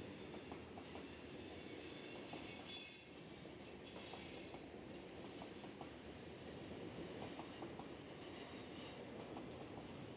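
Norfolk Southern freight train rolling past, steel wheels clicking on the rails with faint high wheel squeal over a steady rumble.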